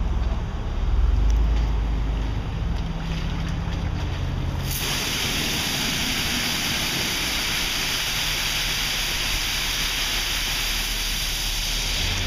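Spray nozzles of a Belanger Saber SL2 automatic car wash switch on about five seconds in with a loud, steady hiss of water spray, cutting off just before the end. A low engine rumble from an idling car sits underneath.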